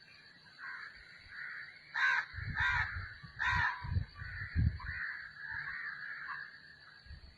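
A crow cawing: three loud caws close together about two to three and a half seconds in, among fainter calls, with low thumps underneath.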